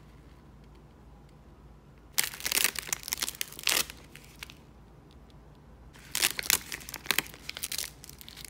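Crisp roasted nori sheets crackling and tearing as nori-wrapped rice balls are pulled apart by hand, in two bursts about two seconds in and again about six seconds in.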